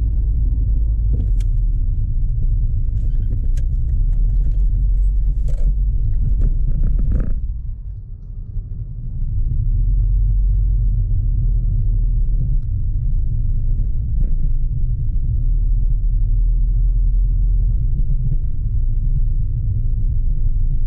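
Low, steady rumble of a car driving, heard from inside the cabin, with a few faint clicks and a brief drop in level about eight seconds in.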